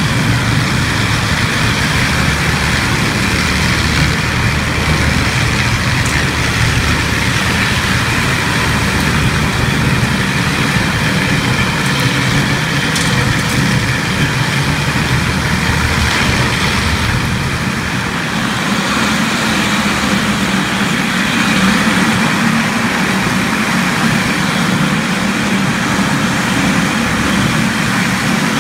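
Contec Omega 450 single-disc floor grinder running steadily, its disc grinding carpet glue and filler off a mastic asphalt floor.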